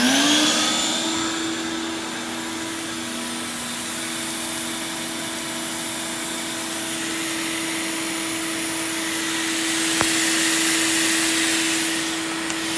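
Shop vac motor in blow mode, pushing air into a car's exhaust through the tailpipe to pressurise it for finding leaks. It winds up to speed at the start, then runs as a steady whine with rushing air; a single click about ten seconds in.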